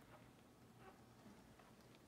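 Near silence: room tone with a few faint, very short sounds.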